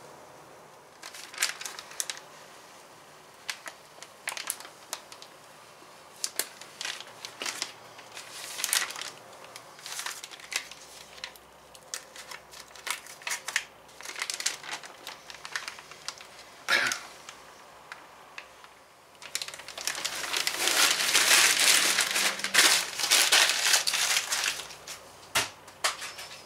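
Paper transfer tape crinkling and crackling as it is slowly peeled back off a wet-applied vinyl decal, with a louder, continuous stretch of crinkling for several seconds near the end.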